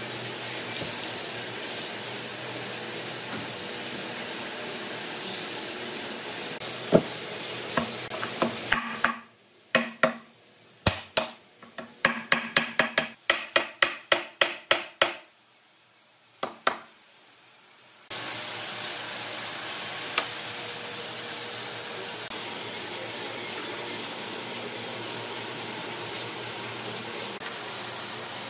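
Steady machine-like hum and hiss, broken from about a third of the way in by a run of about fifteen sharp knocks, about two a second, in near quiet. The steady noise returns after that.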